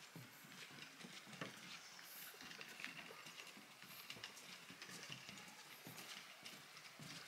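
Faint footsteps of people walking, heard as irregular soft knocks and scuffs a few times a second.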